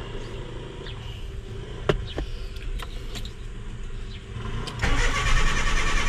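A few light clicks, then about five seconds in the starter of a 2001 Honda Civic VTi's VTEC engine begins cranking with an even pulsing beat, the start of the long cranking of its hard-start fault, which the mechanic puts down to the fuel pump.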